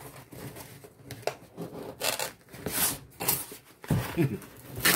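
Cardboard box being handled and pried open by hand: irregular rubbing and scraping of the cardboard, with a sharp scrape near the end that is the loudest sound.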